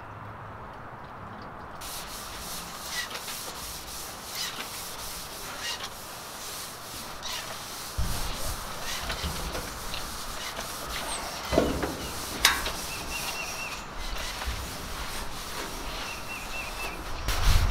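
Solvent-damp rags wiping bare sheet-metal trailer walls, a run of rubbing strokes with a couple of louder knocks about two-thirds of the way through. This is the epoxy-primer-thinner wipe-down that preps bare metal for epoxy primer.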